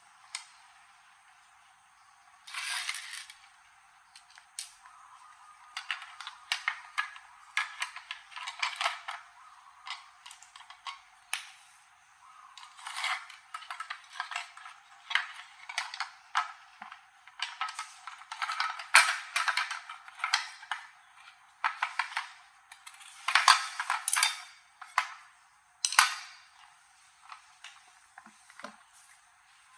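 Small metal toaster parts and hand tools clinking, tapping and scraping in an irregular run of short, sharp clicks.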